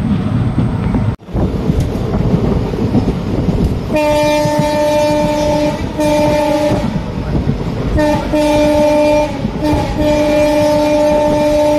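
Rumble of a moving passenger train, heard from inside a carriage. About four seconds in a train horn starts sounding, a steady multi-tone blast repeated several times with short gaps, louder than the running noise.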